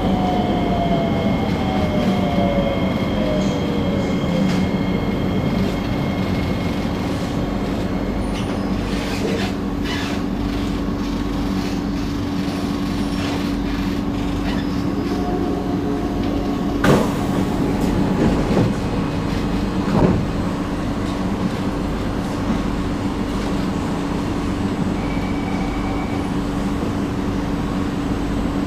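Singapore MRT train running, heard as a steady electric hum over rail and wheel noise, with a falling motor whine in the first few seconds. Two short knocks come about 17 and 20 seconds in.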